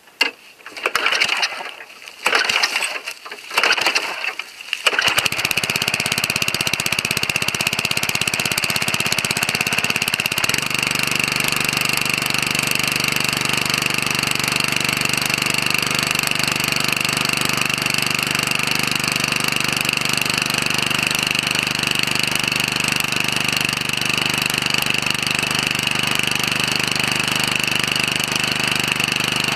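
Noma SuperLite lawn mower's Tecumseh engine being pull-started: a few short cranking pulls, then it catches about five seconds in and runs steadily.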